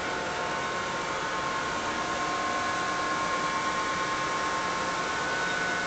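Steady running noise of industrial machinery, the rush of fans and motors with several steady whining tones held throughout.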